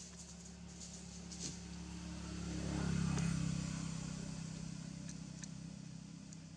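A motor vehicle passing by: its engine hum swells to a peak about three seconds in, then fades away.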